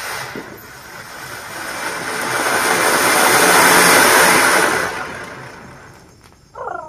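Ground fountain firework hissing as it sprays a column of sparks. It grows louder to a peak about four seconds in, then dies away over the next two seconds. A voice calls out briefly near the end.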